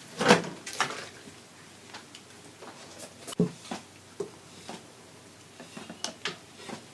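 Scattered knocks and clatters of containers and utensils being handled on a work surface, the loudest about a quarter second in.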